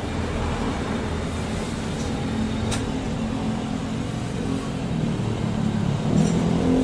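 Yamaha Aerox 155's single-cylinder scooter engine running steadily, picking up a little about six seconds in.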